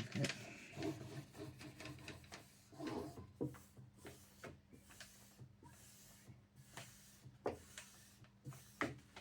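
Faint rubbing and crinkling of self-adhesive vinyl wrap film being handled and smoothed onto a flat drawer panel, with a few short sharp ticks scattered through.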